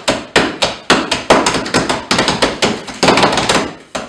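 A drum roll beaten by hand on a bar counter: quick, uneven slaps, several a second.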